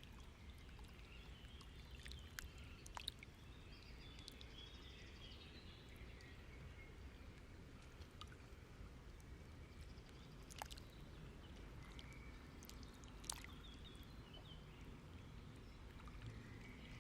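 Near silence: faint room tone with a low hum and a few soft clicks.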